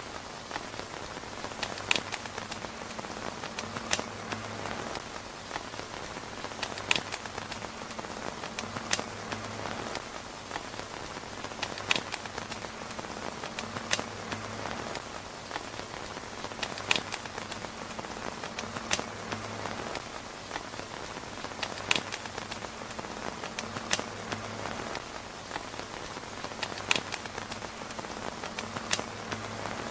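Steady rain falling on a tent's fabric roof, an even hiss with sharp ticks or pops every second or two.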